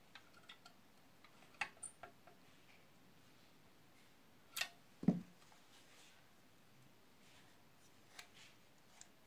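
Small screwdriver clicking and tapping against the thermostat adjusting screw and metal body of an electric iron, in scattered separate clicks, with a dull thump about five seconds in.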